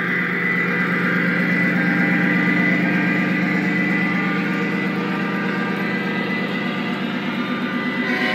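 Lionel O-gauge model freight train running: tank cars rolling past on three-rail track with a steady rumble, over the even drone of the Legacy ES44 diesel locomotive's onboard engine sound.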